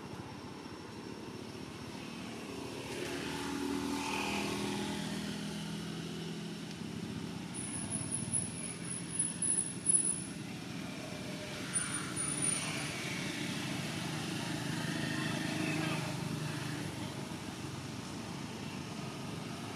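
Motor engine hum from passing traffic, swelling and fading as vehicles go by, with a few sharp clicks in the middle.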